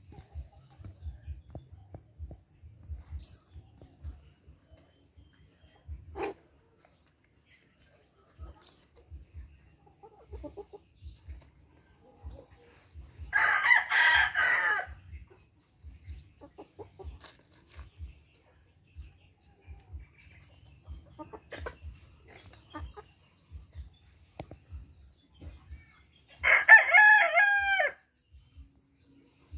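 A heritage-breed rooster crows twice, about thirteen seconds apart, each crow about a second and a half long. Between the crows there are soft, low taps of hens pecking at food on a leaf.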